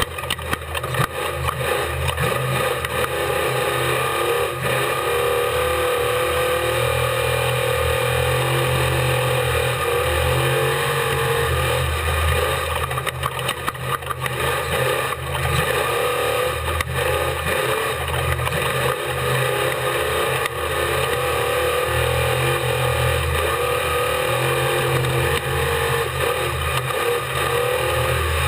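Off-road race vehicle's engine running hard at speed, its revs rising and falling as it is driven around the course.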